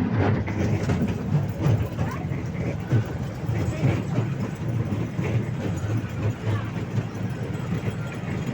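Amusement-park toy train running along its track, heard from aboard: a steady low rumble with irregular rattling and clicking of the wheels and carriages.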